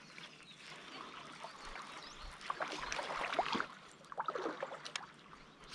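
Shallow river water sloshing and splashing around a wading angler's legs and feet in irregular bursts, loudest in two stretches in the middle and latter half.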